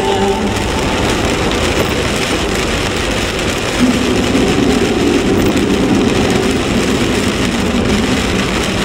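Car driving on a rain-soaked road, heard from inside the cabin: a steady hiss of tyres on wet pavement and rain on the windshield.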